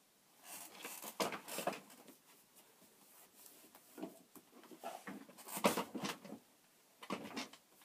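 Irregular rustling and handling noise in short bursts, as a fuzzy blanket brushes right against the microphone while someone shuffles into a chair.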